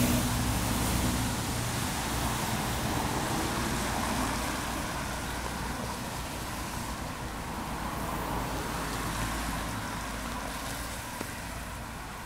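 Street traffic on a rain-wet road: a motor vehicle's engine hum and tyre hiss, fading slowly as it moves away.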